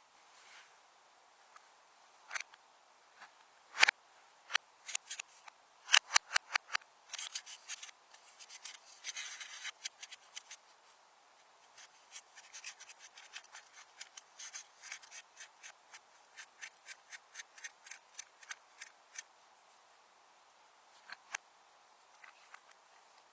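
Slime being worked, making a fast run of sharp, crisp clicks and snaps, several a second. A few louder single snaps come before the run, and it thins out to scattered clicks near the end.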